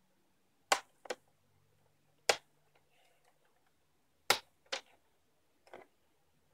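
Plastic snap clips of a laptop screen bezel popping as the bezel is worked along its edge: six sharp snaps, some in quick pairs.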